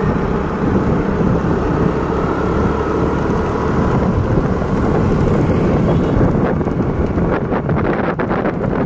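Wind buffeting the microphone of a moving two-wheeler: a loud, steady rumble, with the vehicle's running and road noise beneath it.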